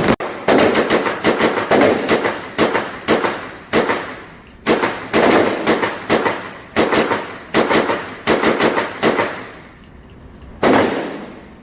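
Rapid gunfire: a long string of single shots about two a second, one after another, then a short pause and one more shot near the end.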